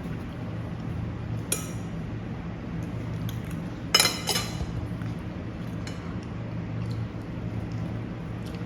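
Cutlery clinking against dishes in a few sharp, ringing strikes, the loudest a quick double clink about four seconds in, over a steady low hum.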